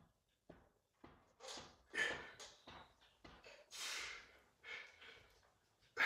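A lifter breathing hard through a set of barbell bench press reps: a string of short, sharp breaths, with one longer exhale near the middle.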